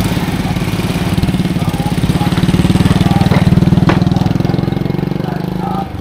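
Small motorcycle engine running close by, with a low, even pulse. It grows louder toward the middle and cuts off sharply just before the end.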